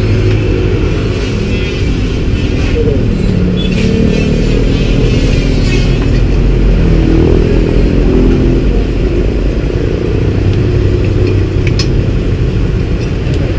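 Road traffic passing: motorcycle and car engines running over a steady low rumble, their pitch rising and falling as they go by. Near the end there is a single sharp click.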